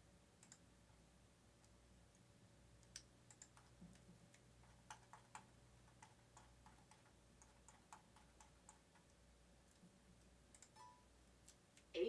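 Faint, irregular clicks of the buttons on a car steering-wheel remote control being pressed, over a low steady hum.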